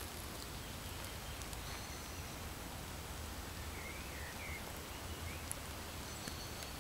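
Faint rustling of Nike Dual Fusion Hills sneakers trampling pansies and soft soil in a flower bed, over a steady low outdoor rumble, with a few faint bird chirps.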